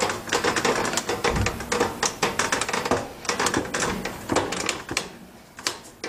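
Rapid, irregular clicking and clattering of hard plastic as a dishwasher detergent dispenser is worked and pressed into the door panel, its locating teeth not yet fully snapped in. The clicking thins out and grows quieter near the end.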